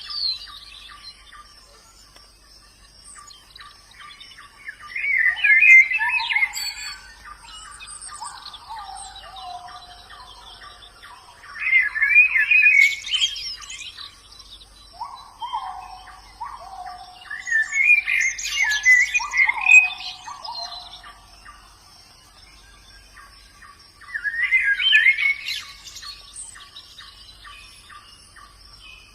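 Pleci (white-eye, Zosterops) singing in short twittering bursts of about two seconds, five times at roughly six-second intervals. Lower falling whistled notes come between the bursts, over a faint steady ticking.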